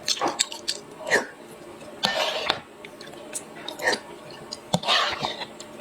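Close-up mouth sounds of someone eating soft bread dipped in sesame paste: wet chewing and smacking in short, irregular bursts about a second apart.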